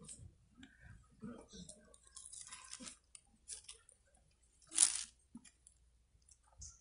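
Faint, scattered rustles and small clicks of handling, with one louder rustle nearly five seconds in.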